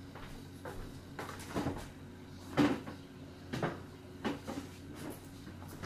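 Household handling noises: about six knocks and clunks, like cupboard doors and objects being moved, the loudest about two and a half seconds in, over a low steady hum.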